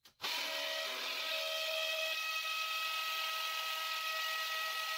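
Hammer drill with a masonry bit running steadily, boring a hole through a 2x4 into brick, with a steady motor whine over a hiss. It starts about a quarter second in, after a brief click.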